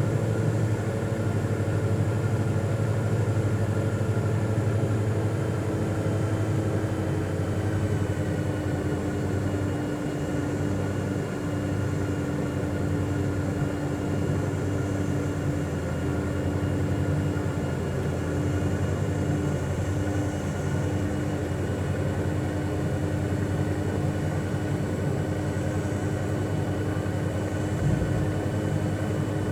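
Steady mechanical droning hum, made up of several steady tones with no rise or fall.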